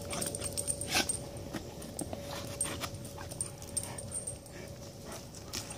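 A Belgian Shepherd dog mouthing, chewing and tossing a burst rubber ball: a run of sharp irregular clicks and taps, the loudest about a second in.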